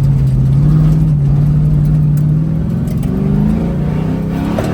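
A vehicle engine pulling hard on the dirt track, its pitch holding steady and then climbing as it accelerates, with a sudden change just before the end.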